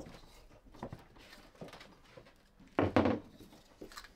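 Quiet hand work on a model railway baseboard: light clicks and scraping as the rails are worked over with a small tool, with one louder, brief rough sound about three seconds in.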